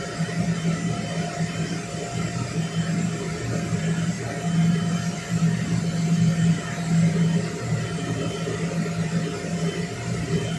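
Electric blower fan keeping an inflatable bounce house up, running with a steady whir and a low hum.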